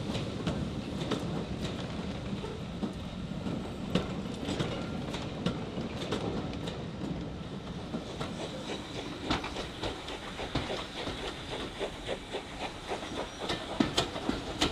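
Passenger coaches rolling along jointed track: a steady rumble with the wheels clicking over the rail joints. From about halfway the rumble eases and the clicks come sharper and more spaced, as heard from aboard the moving train behind a steam locomotive.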